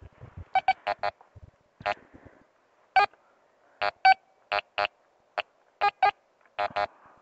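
Metal detector beeping as its search coil is swept over the ground: about sixteen short beeps at one fixed pitch, irregularly spaced, some in quick pairs and clusters. Each beep is the detector signalling a target under the coil.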